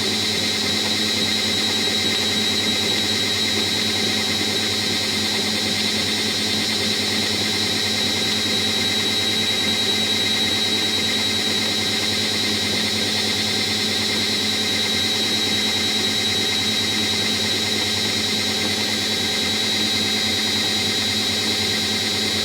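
Washing machine running, with a steady high-pitched squeal over a constant motor hum. The owner suspects a worn drum bearing.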